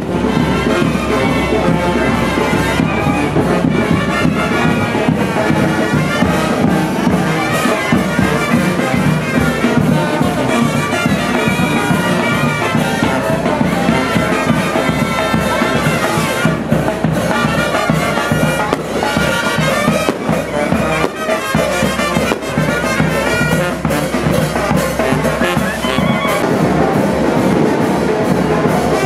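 Brass band music playing continuously.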